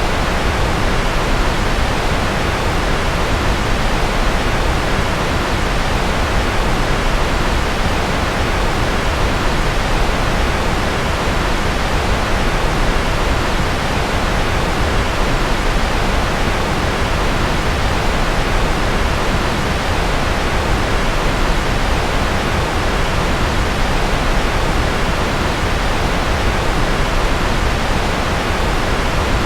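Steady, even rushing noise, heaviest in the low end and thinning toward the highs, with no change or events at all. It is a sleep-aid noise track billed as rocket and jet-engine noise.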